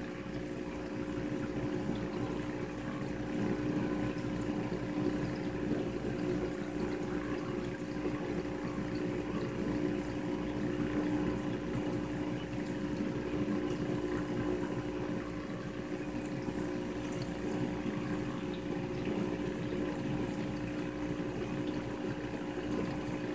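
Reef aquarium pumps running with a steady low hum, over the wash and bubbling of circulating water.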